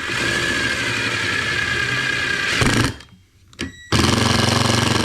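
Power drill driving a screw into a HardieBacker cement board plug stuck inside a hole saw. It runs steadily for about three seconds, stops, gives a short blip, then runs again louder near the end.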